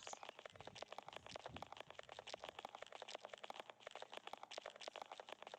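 Near silence with faint, rapid clicking.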